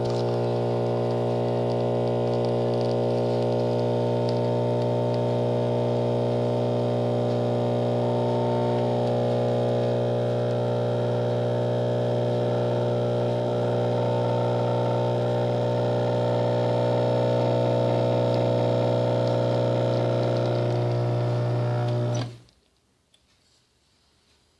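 Gaggia Topazio espresso machine's pump running with a steady, buzzing hum, stopping abruptly about 22 seconds in.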